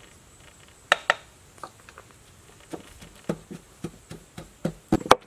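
Wooden pestle pounding in a mortar, knocks starting slowly and coming faster toward the end, with two sharp clicks about a second in. The pestle is grinding chili for a chili-salt dip.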